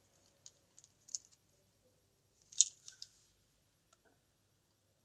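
Light handling noises from plastic fine-liner pens: a few small clicks, then a louder brief scrape or rustle about two and a half seconds in.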